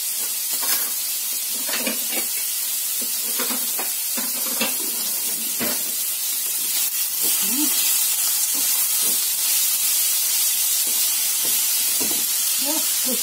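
Cubes of pork fatback (salo) sizzling steadily in a frying pan as their fat renders out, with scattered sharp pops. Near the end the pieces are stirred in the pan.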